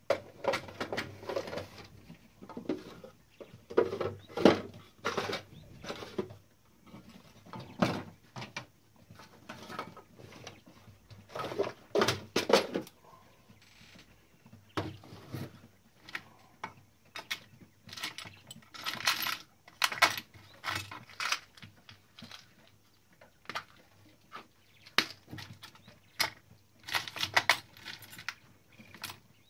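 Irregular metallic clicks and clinks of a Klein Adler 2 typewriter's mechanism and small metal parts and tools being handled during repair, in scattered bursts with short pauses between them.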